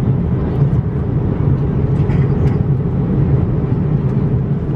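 Steady low rumble of an Airbus A340-600 economy cabin in cruise, airflow and engine noise, with a few faint clicks about two seconds in.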